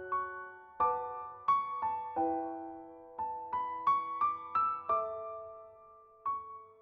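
Gentle background piano music, single notes struck one after another and left to ring.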